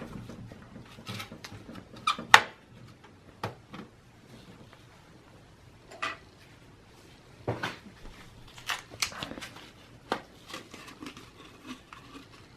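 Hands handling computer parts: a paper towel rubbing over the processor as the old thermal compound is wiped off, with scattered light clicks and taps. The sharpest click is about two seconds in.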